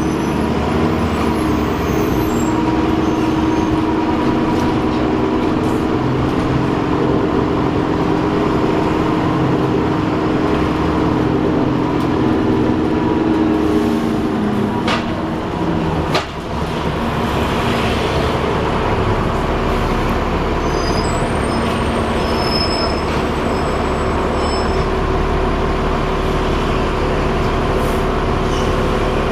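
Alexander Dennis Enviro 400 double-decker bus on the move, heard from inside, with a steady whirring over the road noise. About halfway through the sound dips briefly with a sharp click, then the running noise carries on.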